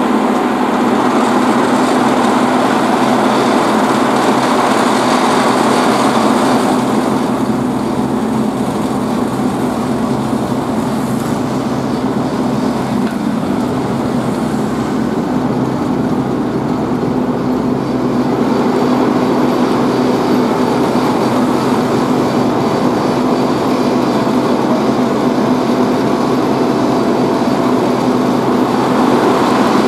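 Diesel engines of road-paving machinery and dump trucks running steadily, with a constant engine hum underneath; the noise eases a little about seven seconds in.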